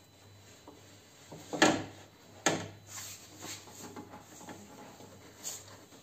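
Metal knocks and rattles from inside a Peugeot 407's stripped front door as a hand works at the electric window regulator and glass guide: two sharp clunks about one and a half and two and a half seconds in, then a string of lighter knocks and scraping.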